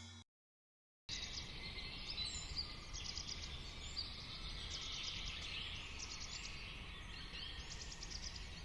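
Faint outdoor background with small birds chirping, starting about a second in after a brief silence.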